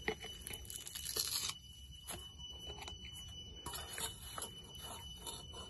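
Hands snapping and tearing fresh green stems into short pieces over an aluminium bowl: faint, irregular crisp snaps and crackles, busiest in the first second and a half and again around four seconds in.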